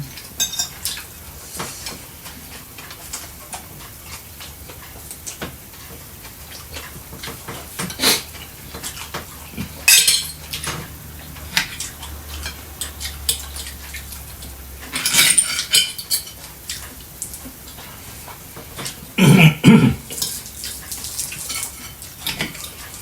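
Cutlery clinking and scraping on plates during a meal: scattered light clicks, with a few louder clatters spread through.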